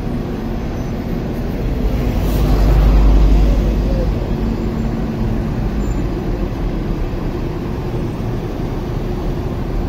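Street traffic noise, a steady rumble of road vehicles, swelling as a vehicle passes close about three seconds in.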